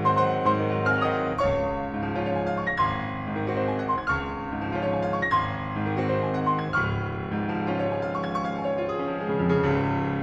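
Piano music, notes struck one after another with a soft melody over held chords.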